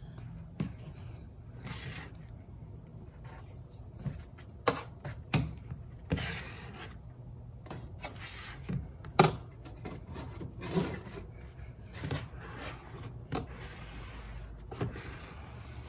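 Metal putty knife scraping and smearing Bondo body filler, stirred on a paper plate and spread onto the bare steel face of a door, in short intermittent strokes with a sharp tap about nine seconds in.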